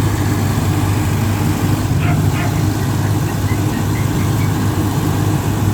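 Mobile rice milling machine running steadily, its engine holding a constant speed as it mills rice.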